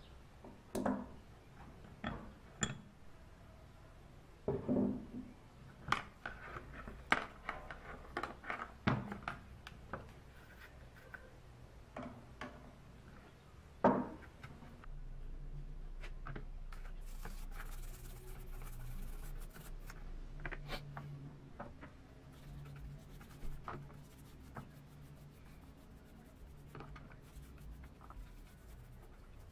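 Small wire brush scrubbing metal in a shallow metal pan of cleaning liquid: irregular scratchy strokes and sharp knocks against the pan. A steady low hum comes in about halfway.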